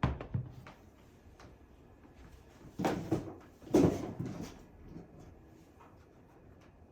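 Handling knocks and clatter of an airsoft rifle and its optic being worked on by hand: a sharp knock at the start, then two louder clattering knocks about three and four seconds in.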